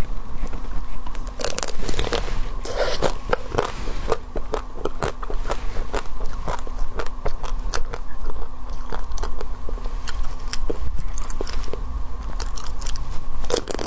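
Close-miked bites into a chocolate-coated Magnum ice cream bar: the hard chocolate shell cracks and crunches in many sharp crackles, with chewing between bites.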